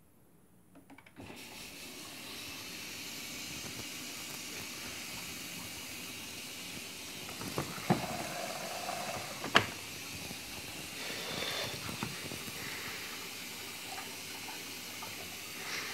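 Miele W Classic front-loading washing machine filling after start: a steady hiss of water running in through the detergent drawer, beginning about a second in. A few sharp knocks about halfway through.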